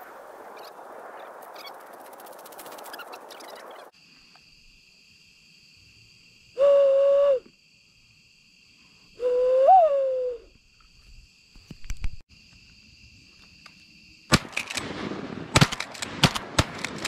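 Shotgun fired in quick succession near the end, several sharp reports. Before that, two loud hooting calls about two seconds apart, the second rising and falling in pitch, over a steady high whine; the first few seconds hold a rushing noise that cuts off suddenly.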